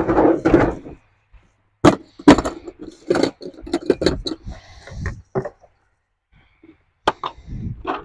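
An irregular run of sharp knocks and clicks, several coming in quick succession, with short gaps between groups.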